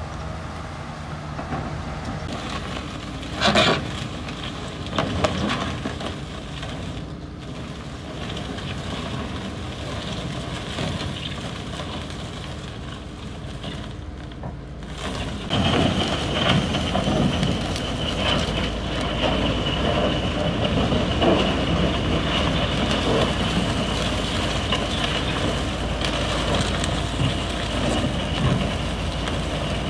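Caterpillar tracked excavator's diesel engine running under load as it moves a steel sand-dredge pontoon over a gravel road, with the hull grinding and scraping across the ground. There is a sharp clank about three and a half seconds in. From about halfway through the noise is louder, with a steady high whine over it.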